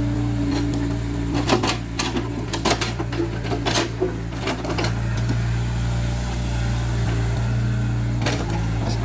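Caterpillar 307C excavator's diesel engine running steadily, with a run of sharp knocks and clatters from about one and a half to five seconds in and another near the end, as stones knock against the steel bucket and each other.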